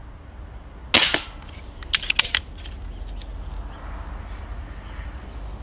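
Stoeger XM1 S4 Suppressor, a suppressed .177 (4.5 mm) PCP air rifle, firing a single shot about a second in, followed about a second later by a short run of quick clicks.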